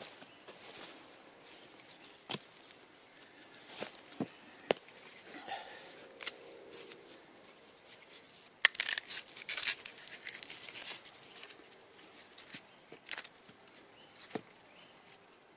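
Food being prepared by hand on a wooden stump: scattered light knocks and taps. About nine seconds in comes a two-second burst of dry crackling and tearing.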